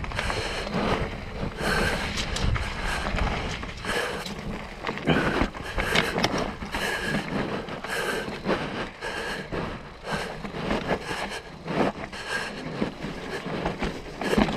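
Mountain bike descending a rough dirt trail: steady tyre rumble with frequent rattles and knocks from the bike over bumps.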